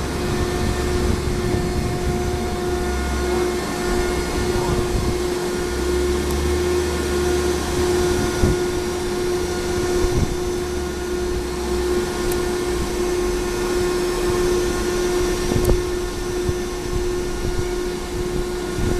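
Baler running with a steady hum and a low, uneven rumble, with a few short knocks.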